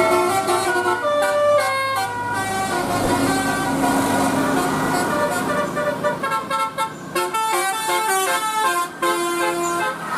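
Bus telolet horn, a Basuri multi-trumpet musical air horn, playing a quick tune of stepped notes that jump up and down, over the noise of road traffic.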